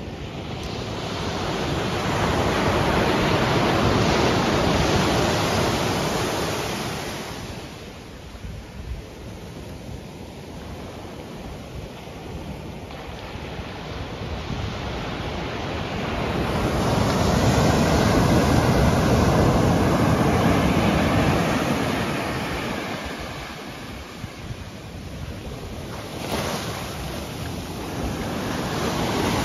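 Ocean surf: waves breaking and washing up the sand, the rushing sound swelling and fading twice in long surges, with another building near the end.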